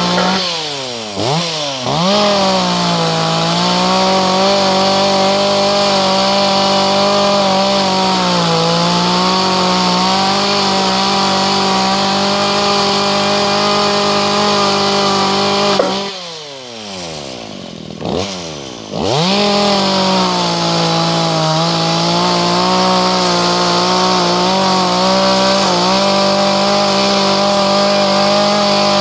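Two-stroke gasoline chainsaw running at high revs. Twice the throttle is let off: the engine note falls sharply and revs back up in two quick dips, about a second in and again around the middle.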